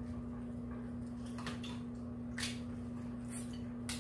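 Eating sounds at a dinner table: a few short, sharp clicks and cracks from food and dishes being handled, over a steady hum.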